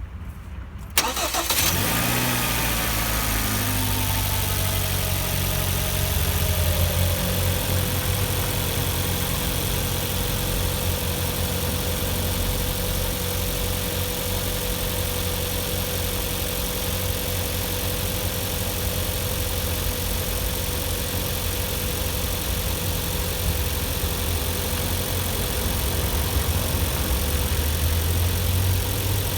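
Hyundai/Kia G4KD 2.0-litre four-cylinder petrol engine starting about a second in, then running at a fast cold-start idle. A whine in it falls in pitch over the next several seconds before the engine settles into a steady warm-up idle.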